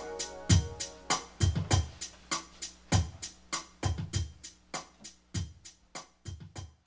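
Music ending: an electronic drum beat of kick drum and sharp cymbal or snare hits, fading out steadily once the keyboard chords stop.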